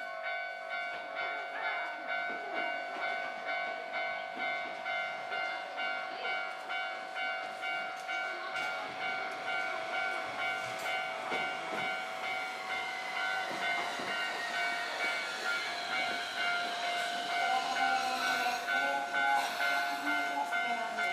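Railway level-crossing warning bell ringing steadily at about two strokes a second as a Tokyu Setagaya Line 300 series tram arrives. Over the later seconds a whine falls in pitch as the tram slows, with rising wheel and brake noise near the end.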